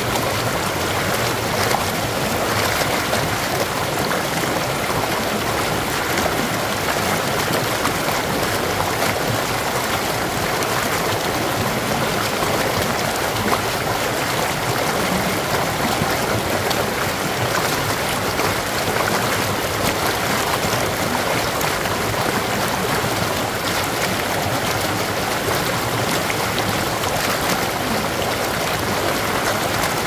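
Stream water pouring over a low rock ledge and splashing into white water below: a steady rushing and babbling.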